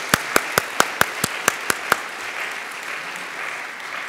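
Audience applauding, with one pair of hands clapping loud and close at about four or five claps a second that stop about two seconds in, while the general applause carries on.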